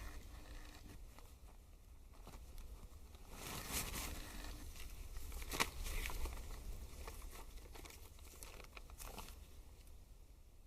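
Paper crackling and rustling, with a dense run of crisp crackles through the middle and a few more near the end.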